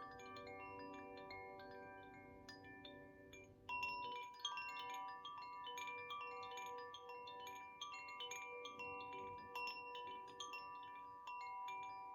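Koshi Ignis wind chime played by hand: its clapper strikes the tuned rods in quick, irregular strokes, leaving many overlapping ringing tones. The strikes get louder and brighter about four seconds in.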